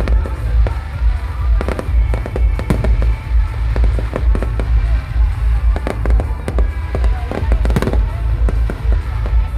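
Fireworks display: aerial shells bursting one after another, sharp bangs and crackles over a constant heavy low booming, with loud music playing alongside.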